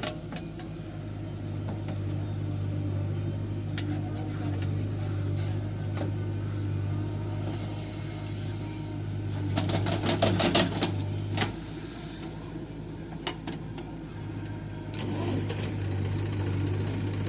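Heavy diesel engine of a backhoe loader or tractor running steadily, with a short burst of clattering knocks about ten seconds in and a fainter few near the end.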